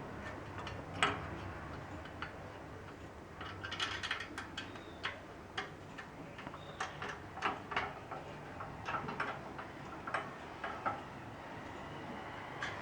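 Irregular light clicks and taps of stand parts being handled as the lower and upper sections of the stand's rod are fitted together and bolted, with a quick cluster of clicks about four seconds in.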